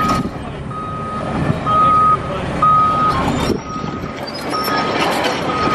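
Heavy-equipment backup alarm beeping about once a second, each beep about half a second long, over the steady running of diesel machinery.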